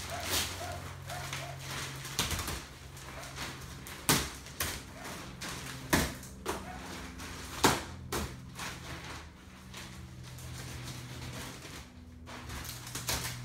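Clear plastic packaging sheet crinkling and rustling as it is handled and pulled off, with a few sharp crackles.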